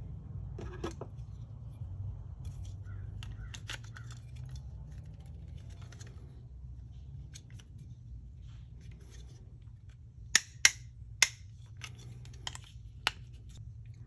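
MC4 solar connector's plastic cap nut being turned with plastic MC4 spanner wrenches: light handling rattles, then three sharp clicks in quick succession about ten seconds in as the nut ratchets tight, followed by two fainter clicks.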